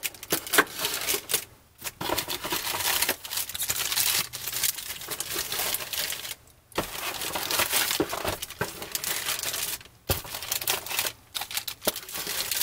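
Card-pack wrappers crinkling as packs of trading cards are lifted out of a box and handled, in bursts broken by a few short pauses.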